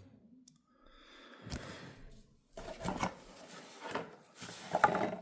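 Handling sounds: a string of irregular knocks and clicks, about five of them, with rustling between, as objects are picked up and set down.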